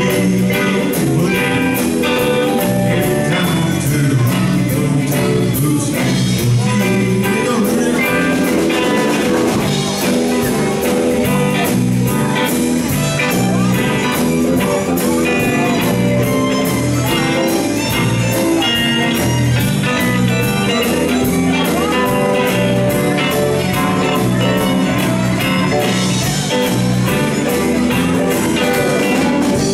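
Live country band with fiddle, electric guitars, keyboard and drums playing an up-tempo line-dance number with a steady beat, heard in a large hall.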